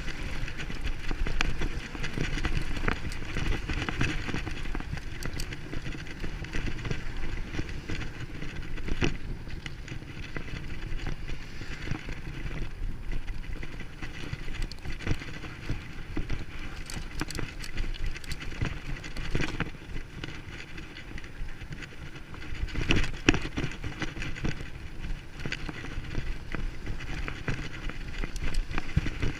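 Bicycle ride: a continuous rumble and rattle from the bike on the ground, with scattered clicks and knocks, and the rider breathing hard.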